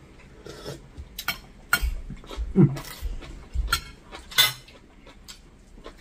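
Cutlery and crockery clinking at a meal: a spoon tapping plates and bowls in a few scattered sharp clinks, with some light knocks, the loudest clink about four and a half seconds in.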